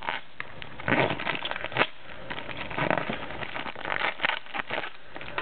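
Clear plastic packaging crinkling and crackling in irregular bursts as it is handled and opened by hand.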